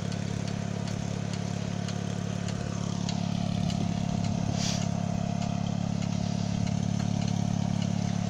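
Small tractor's engine running steadily at idle.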